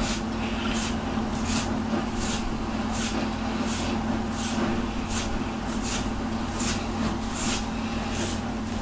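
A hand rubbing a cat's back fur in quick, even strokes: a soft rustle about two to three times a second, over a steady low hum.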